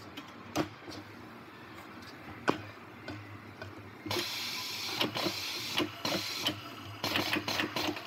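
Tyre changer at work while a new tyre is fitted to an alloy wheel. There are a few knocks as the tyre is handled onto the rim, the loudest about two and a half seconds in. About four seconds in, a steady mechanical whirr with clacks starts and runs for about four seconds.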